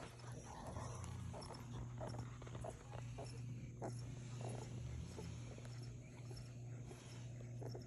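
Sleeping puppies snoring faintly, with short, irregular little sounds scattered over a steady low hum.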